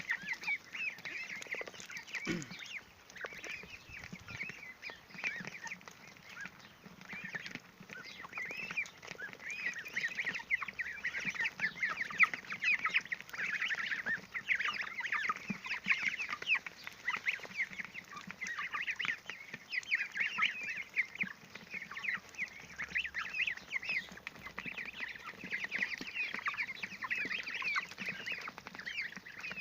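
A flock of young broiler chicks, ducklings and goslings cheeping constantly as they crowd and feed, a dense chorus of many short, high calls.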